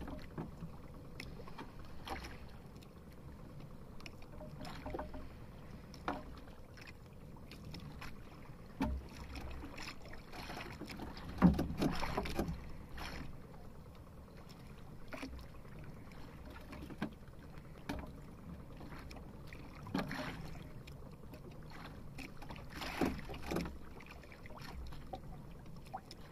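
Sea water sloshing against the hull of a small outrigger fishing boat as a handline is hauled in, with scattered knocks on the boat; the loudest knock comes about halfway through.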